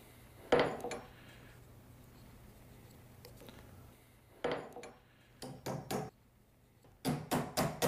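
Wooden leveling wedges being tapped and knocked into place between the slate of a pool table and its leveling brace: scattered light knocks, a short cluster midway, then a quick run of taps near the end.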